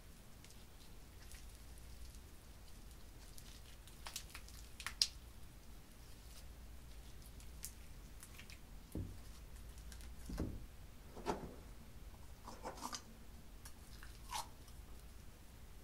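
Clear slime full of small foam beads being stretched, folded and squeezed by hand, giving faint scattered crackles, pops and squishes, with a few louder clusters in the second half.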